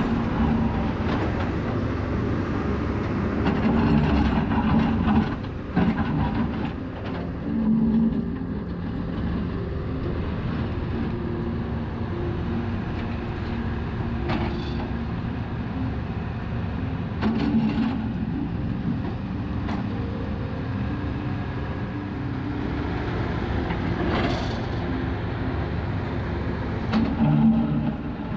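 Heavy vehicle engines running with a steady low rumble, with a few short knocks.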